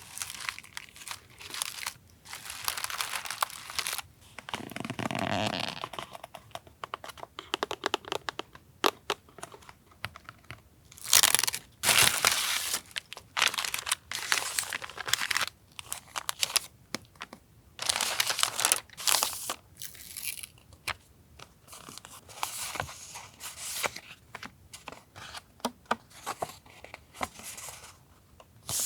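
Paper and plastic packaging handled close up: irregular crinkling, rustling and tearing in short bursts, with small taps between them.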